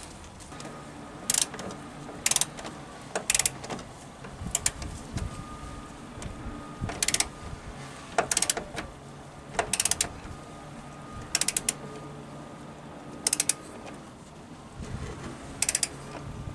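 Hand socket ratchet clicking in short runs, about once a second or so, as the handle is swung back between turns on the top mounting bolt of a car's rear shock absorber.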